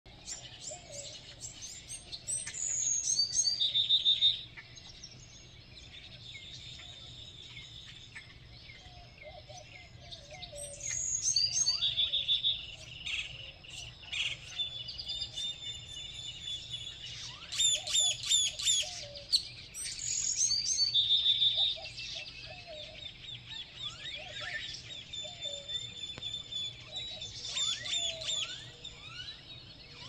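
Chorus of several songbirds chirping, whistling and trilling. One song phrase, a few descending slurred notes ending in a fast trill, recurs about every nine seconds.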